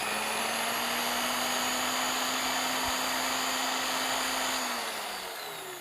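Electric buffer polisher running on its lowest speed setting, a steady whine as the pad spreads heavy-duty compound on a headlight lens, then switched off and winding down near the end.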